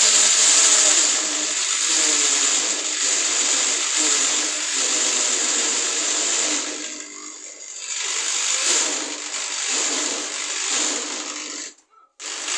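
Electric drill running at speed with a loud hissing whine. It slows and dips about seven seconds in, picks up again, then cuts off sharply near the end before starting up once more.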